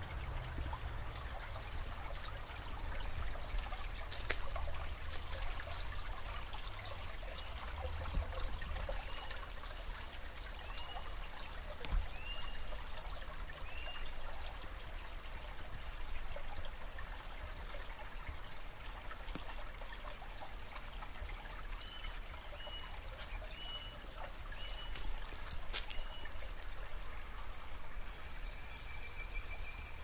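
Shallow creek water trickling over rocks, with a low rumble on the microphone during roughly the first ten seconds. Native birds call over it: one repeats a short chirp about every second and a half, and later comes a quicker run of chirps with higher notes.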